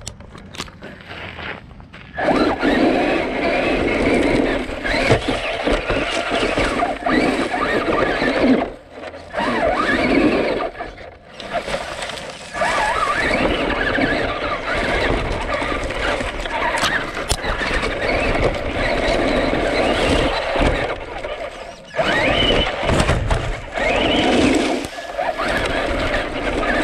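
Traxxas Rustler 4x4 RC truck driving hard over gravel and dry leaves, heard from on board: electric motor and gear whine rising and falling with the throttle, over tyres crunching and scraping. It starts about two seconds in and goes in surges, dropping away briefly several times.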